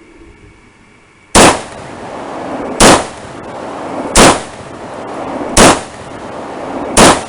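Norinco SKS carbine firing five 7.62×39mm rounds semi-automatically, one shot about every 1.4 seconds. Each shot is very loud and leaves a lingering echo.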